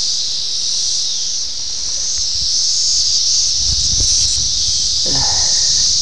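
Chorus of 17-year periodical cicadas (Brood X): a loud, steady high-pitched drone, with low bumps from the camcorder being handled about four seconds in.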